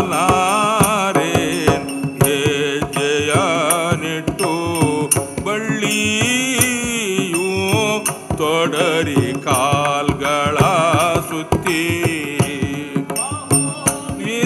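Live Carnatic-style music accompanying Karnataka's Togalu Gombe Aata shadow-puppet theatre: a wavering melody line over a steady drone, with frequent percussion strokes.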